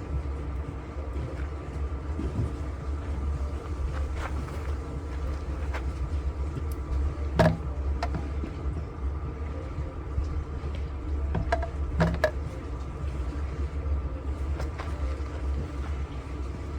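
Steady low rumble of wind, with a few sharp clicks from hand tools as the fuel line is taken off a portable generator's carburetor. The loudest click comes about halfway through, and two more follow close together later.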